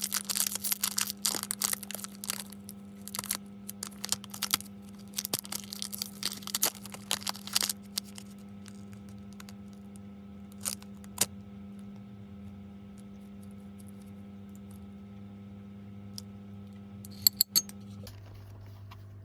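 Plastic snack packaging crinkling and tearing in quick crackly bursts for about eight seconds, then a couple of light clicks and a sharp tap near the end, over a steady low hum.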